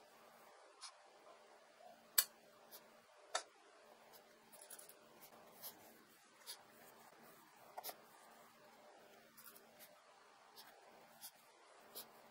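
Handheld sharpening stone worked along a steel kitchen knife blade lying on a ceramic tile: faint scraping with irregular sharp clicks about once a second, the loudest two about two and three and a half seconds in.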